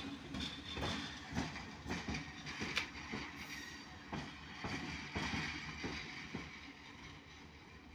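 Passenger train with an electric locomotive running past: wheels knocking and clattering over rail joints and points, with a thin wheel squeal on and off. The sound fades over the last few seconds.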